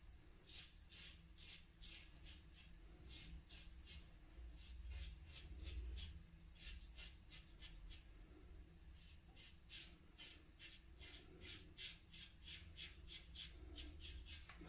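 Feather ASD2 double-edge safety razor blade scraping through lathered stubble in quick short strokes, several a second: a faint, crisp scratching of an against-the-grain shaving pass.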